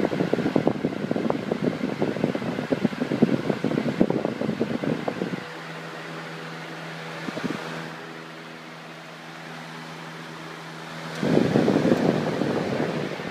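Lasko 20-inch box fan running. Its airflow buffets the microphone for the first five seconds or so and again near the end; in between, a steady hum with several even tones is heard.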